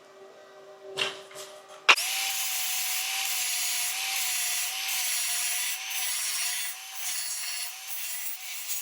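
A few light knocks, then an angle grinder with a flap disc switches on about two seconds in and grinds down a MIG weld bead on steel, a steady motor whine over a hiss of abrasive on metal.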